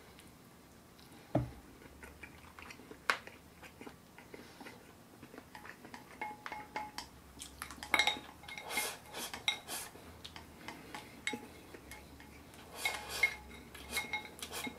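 Wooden chopsticks clicking and scraping against a ceramic rice bowl held to the mouth as rice is shoveled in. A few separate clicks at first, then quick runs of clicks about halfway through and again near the end.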